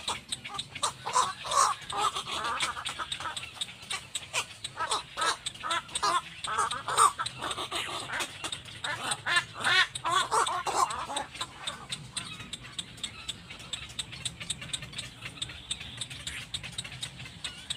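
Little black cormorants calling: a run of repeated wavering calls for about the first ten seconds, then only faint clicks.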